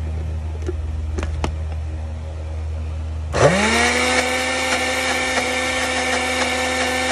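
Electric countertop blender switched on a little over three seconds in: the motor spins up quickly to a steady high whine and runs, pureeing ginger, garlic and onion into a wet paste. Before it starts there is only a steady low hum and a few light clicks.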